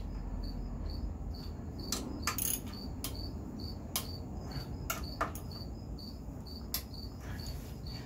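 Socket wrench tightening the Brembo brake caliper mounting bolts: a few scattered sharp metal clicks, over a faint high chirp that repeats evenly nearly three times a second.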